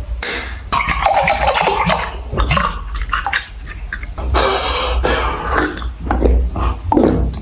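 Close-miked eating sounds: irregular wet chewing and crackling mouth noises.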